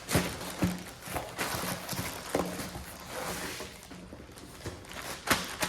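Rustling and knocking of packaging and a cotton jiu-jitsu gi being handled as it is unpacked, with several sharp knocks, the loudest near the end.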